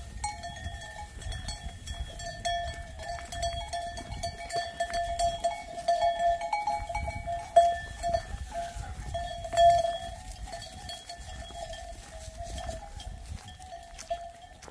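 Bells on a flock of sheep ringing steadily and overlapping, with scattered clinks and two louder knocks near the middle, over a low rumble.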